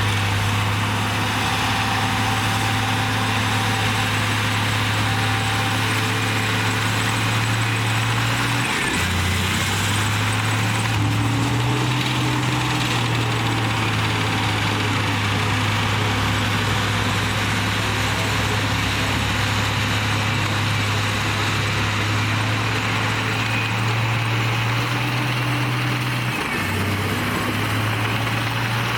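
Komatsu D58E bulldozer's diesel engine running steadily, with a hiss of noise over it. Its pitch dips briefly twice, about nine seconds in and near the end.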